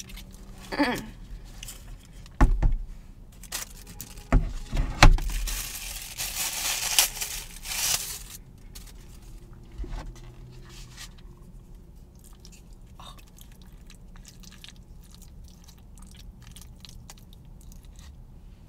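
Close-up sounds of handling takeout food. There are a few dull thumps, then a loud rustle lasting two or three seconds. After that, a plastic fork scrapes and stirs through mac and cheese in a paper bowl with small light clicks.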